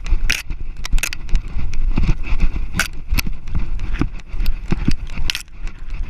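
A back-mounted GoPro jostling on a German shorthaired pointer running through tall dry grass: irregular knocks and rattles of the camera and harness, grass brushing against it, and a steady low rumble.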